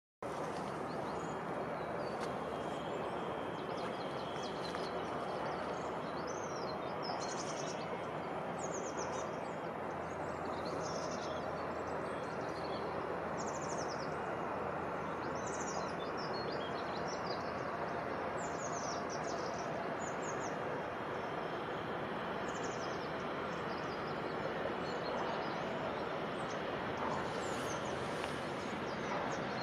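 Steady outdoor background noise with small birds giving many short, quick downward chirps over it from about a quarter of the way in.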